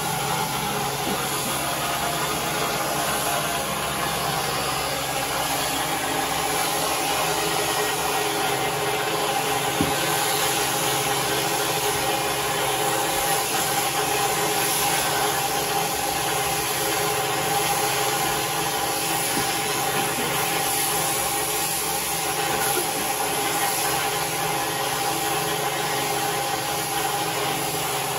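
Electric sheep shears running with a steady hum while the handpiece clips fleece from a sheep.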